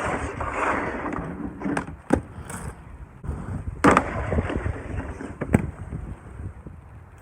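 Inline skates grinding on a composite decking ledge, the 3D-printed PLA sole frames sliding on it: twice a hard knock as the skater locks on, a second or so of scraping slide, then a sharp clack on landing.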